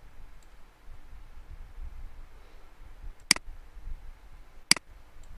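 Computer mouse clicking twice, about a second and a half apart, over a low background rumble.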